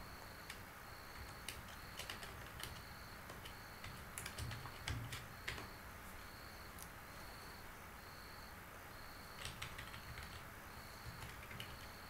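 Computer keyboard being typed on in short, irregular runs of key clicks, busiest about four to five and a half seconds in and again near ten seconds.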